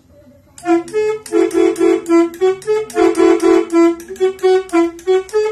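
Telolet air horn (Maroo horns) played through a 17-button telolet module, tooting a quick tune of about twenty short notes on a few alternating pitches, starting about half a second in. It is loud.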